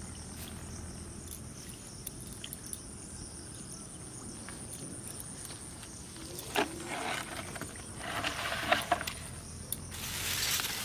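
Steady high-pitched insect buzz over quiet pondside ambience, with a sharp click and a few scattered rustles in the second half. A black plastic bag rustles as it is handled near the end.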